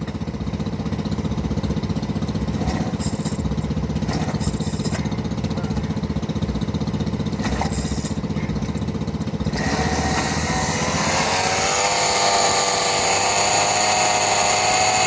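Homelite two-stroke chainsaw engine idling with a low, steady beat, then revved up sharply about ten seconds in and held at high speed with a wavering whine. The saw is running smoky and spitting smoke through the carburettor, which the owner takes for it choking on its own smoke.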